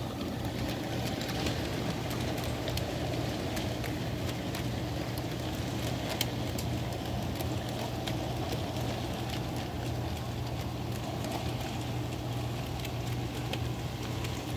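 HO scale model freight train running past on the layout: metal-wheeled cars rolling over the track with a steady rumble and a scatter of small clicks, over a constant low hum.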